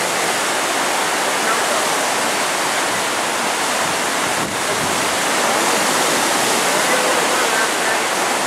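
Floodwater of a river over its banks, rushing and churning in fast white-water rapids: a loud, steady rush of water.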